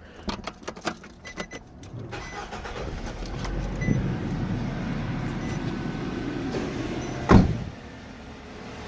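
2008 Nissan Versa's four-cylinder engine being started: a few key and ignition clicks, then the engine cranks, catches and runs at a fast idle. There is one loud thump about seven seconds in, after which the engine settles to a quieter idle.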